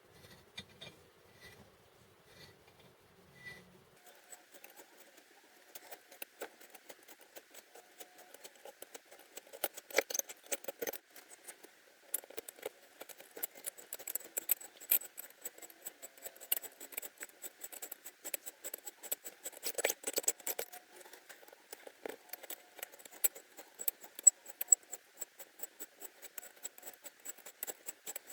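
Two-flute 8.03 mm hand reamer being turned through the exhaust valve guides of a MeMZ-2471 cylinder head: a rapid, uneven run of small metallic clicks and scraping that starts about four seconds in. This is the finishing pass after the 8.02 mm reamer, so the cut is light.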